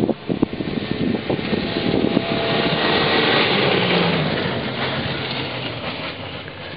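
Off-road race vehicle's engine running hard as it speeds past over a rocky dirt track. The sound swells to its loudest a few seconds in, then fades, and the engine note drops in pitch as it goes by.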